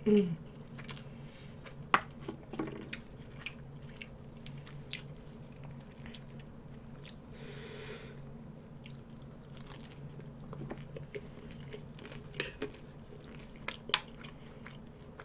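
Close-up chewing and wet mouth sounds of a person eating Puerto Rican rice, with many small clicks and a few sharper ones.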